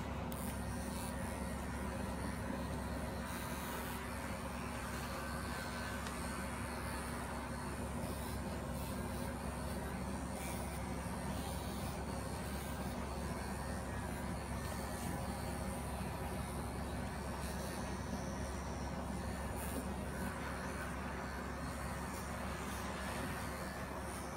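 Handheld electric animal clippers running with a steady hum as they cut through the belly and chest wool of a German angora rabbit.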